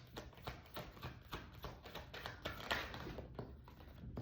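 Faint, irregular tapping and clicking, several taps a second, from hands handling tarot cards.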